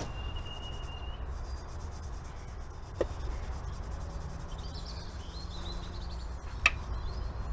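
Faint bird chirps over a steady low outdoor background, with a couple of light clicks.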